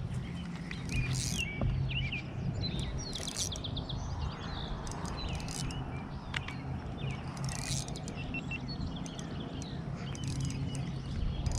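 Several wild birds chirping and singing, with quick trills, over a steady low hum and outdoor background noise, with a few brief clicks.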